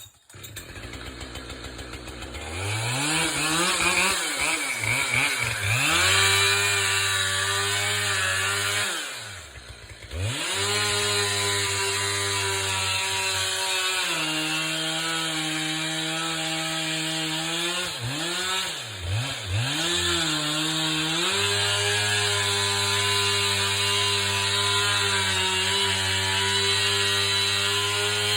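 Chainsaw running at high revs. It winds up about two seconds in, comes off throttle briefly near the middle and again twice later, and drops in pitch for a few seconds while working in the cut on a white pine trunk.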